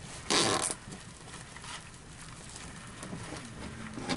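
A Q-band duct strap, a large zip-tie-style band, is zipped once through its ratchet as it is pulled tight around a flexible duct: one short, rasping zip. It is followed by faint rustling as the strap is handled.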